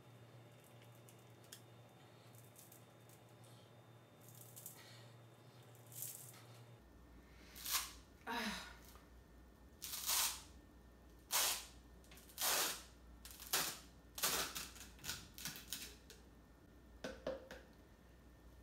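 A run of about a dozen short rustling and scraping handling sounds over about ten seconds, typical of dry ingredients and utensils being handled while measuring out.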